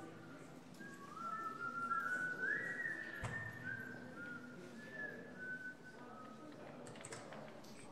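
A person whistling a slow tune, single notes that slide up and down into one another, stopping a little after five seconds in; a single sharp click sounds about three seconds in.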